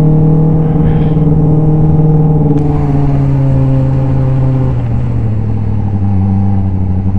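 Open-wheel race car's engine heard from the cockpit, running at a steady throttle with its note falling slowly as the revs drop.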